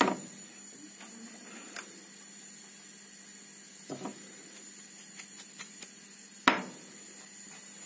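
A few sharp clicks and taps of metal handling as a freshly cut key is released from the clamp of a Silca Ninja Total key-cutting machine and picked up, the loudest right at the start and one about six and a half seconds in. The cutter is not running; a faint steady hum sits under the clicks.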